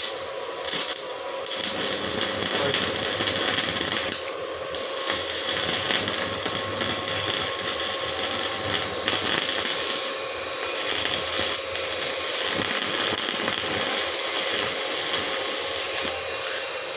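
Stick (MMA) welding arc from a small Ryu inverter welder burning a 2.6 mm electrode on thin steel: a continuous crackling hiss with sparks. It starts about a second and a half in, breaks off briefly around four seconds and ten seconds in as the arc is re-struck, and stops near the end. The arc is burning steadily, which the welder calls very good.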